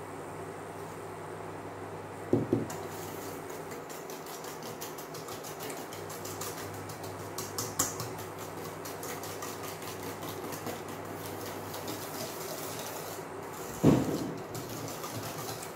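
Wire balloon whisk beating eggs and sugar in a stainless steel bowl: a fast, continuous run of scraping, clinking strokes against the metal, with a louder knock about two seconds in and another near the end. A steady hum runs underneath.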